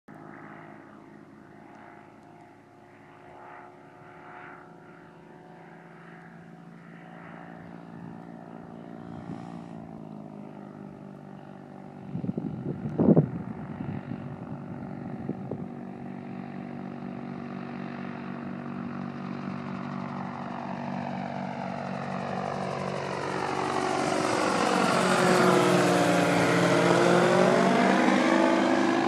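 Gyrocopter's turbocharged HKS engine and propeller running steadily and drawing closer, the drone growing louder until it is loudest near the end and just starting to fade. A few sharp knocks and crackles cut in about twelve to thirteen seconds in.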